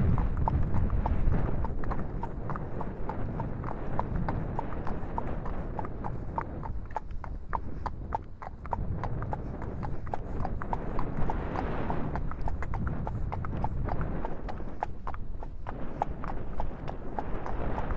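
Many sharp, irregular clicks or knocks over the low rumble of wind on the microphone.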